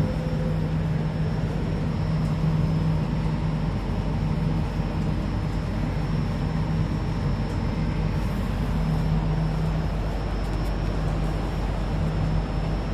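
Cabin noise inside a Jakarta MRT train car: a steady rumble with a low hum that fades in and out, and a faint high steady whine above it.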